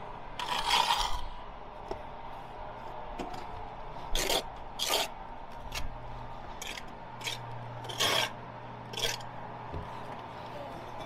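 Brick trowel scraping mortar on the bricks, a series of short scraping strokes at irregular intervals, the strongest about a second in and around eight seconds in.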